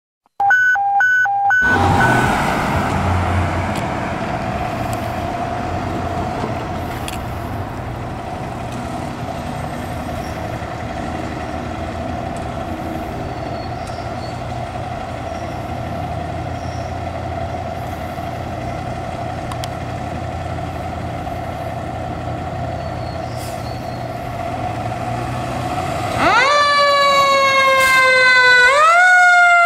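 Fire engine running steadily, with a short run of beeps at the start. About 26 seconds in, its Federal Q2B siren sounds loudly: it rises in pitch, sinks slowly, then rises again.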